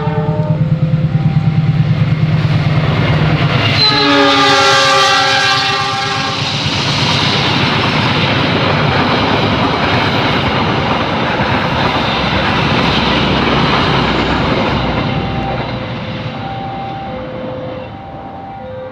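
CC206 diesel-electric locomotive arriving: the engine throbs as it approaches, then about four seconds in it sounds a long horn blast. After that the locomotive and cars rumble past, with clickety-clack from the wheels, fading near the end.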